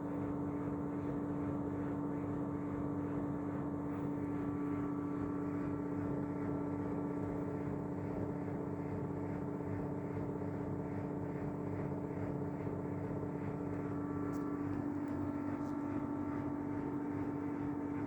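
Whirlpool FSCR90425 washing machine in its 1000 rpm spin, running at a constant high speed: a steady motor whine over the drum's even hum.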